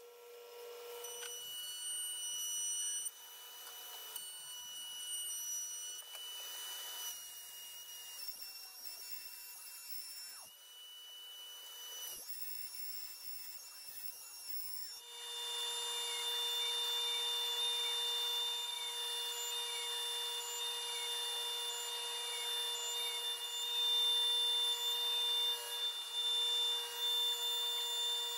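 Woodworking power tools running in turn, with no speech. A table saw and a second bench machine are cutting boards first, then, from about halfway, the DeWalt router on a CNC machine runs with a steady whine.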